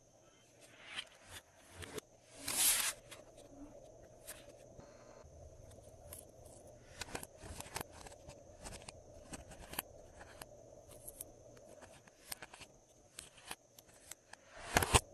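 Glossy slime being squeezed and stretched by hand, giving irregular sticky clicks and pops, with a louder squelching burst about two and a half seconds in and again near the end.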